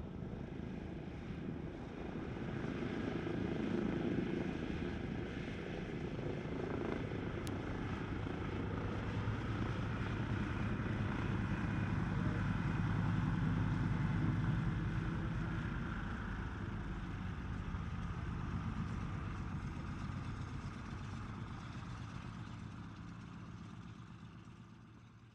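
The twin Pratt & Whitney R-2000 radial engines of a de Havilland Canada DHC-4 Caribou running at low taxi power, propellers turning, with a steady low drone. It grows louder about halfway through as the aircraft rolls past, then fades out near the end.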